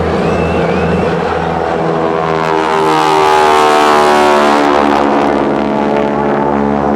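Two Boeing Stearman biplanes' radial engines droning as they fly past low, swelling to their loudest about midway, with the pitch sliding as they go by.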